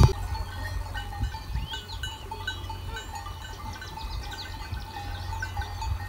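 Small tinkling bells on a grazing flock of sheep, clinking in a loose steady rhythm, while small birds chirp in quick high calls throughout.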